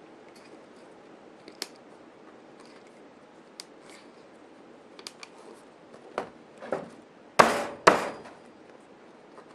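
Scattered small clicks and knocks from handling a beadlock wheel and foam-filled tire as the tire is seated on the rim. Near the end come two loud knocks about half a second apart.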